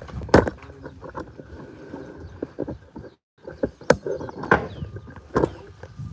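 A few sharp knocks of wood being struck: one about half a second in, then three more spread over the second half. The sound briefly cuts out completely a little past three seconds.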